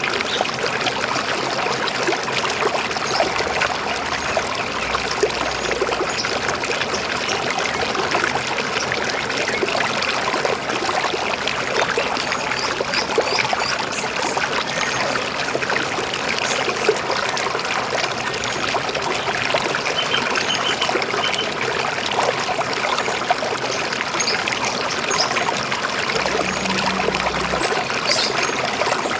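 River water flowing and splashing over rocks, a steady babbling trickle, with a few faint high bird chirps about two-thirds of the way through and near the end.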